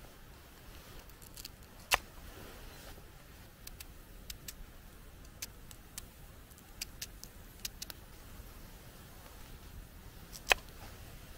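Knife cutting a sweet potato on a wooden board: scattered light clicks and taps of the blade, with two sharper knocks of the knife against the wood, about two seconds in and near the end.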